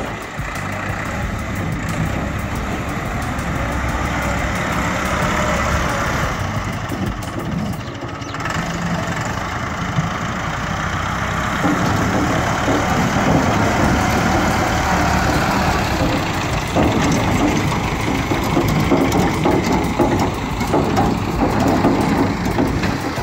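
Massey Ferguson 375 tractor's four-cylinder diesel engine running with its tipping trolley raised, getting louder from about halfway as the tractor pulls forward.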